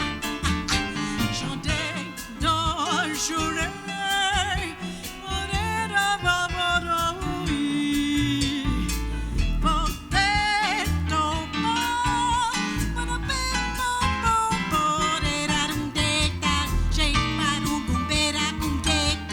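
Live jazz combo playing an instrumental passage: a lead melody line with vibrato over a walking low bass line and drums with cymbals.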